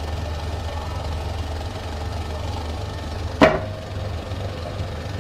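A glass lid with a steel rim set down on a stainless-steel wok with one sharp clank that rings briefly, about three and a half seconds in, over a steady low hum.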